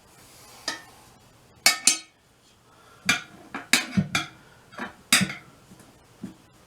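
Steel tire spoons clinking against a wheel rim and each other as a tire bead is levered on by hand: about ten sharp metallic clinks at an irregular pace.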